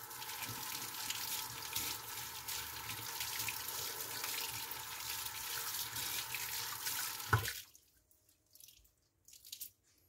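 Tap water running into a sink while vacuum cleaner filter parts are rinsed by hand. The water stops suddenly about seven and a half seconds in, just after a sharp knock.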